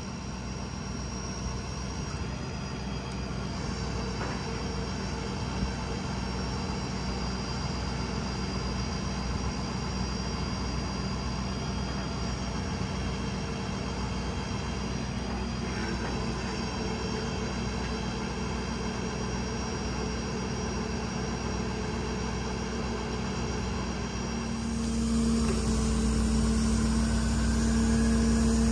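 Ford F-550's 6.7-litre Power Stroke diesel running steadily while it drives the Stellar 5521 service crane's hydraulics as the boom is worked. About 25 seconds in the sound grows louder, with a stronger steady low hum.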